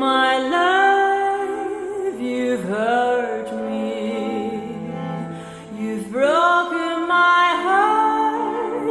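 A woman singing a slow ballad with long held notes that slide up into pitch and waver, over a quiet steady accompaniment.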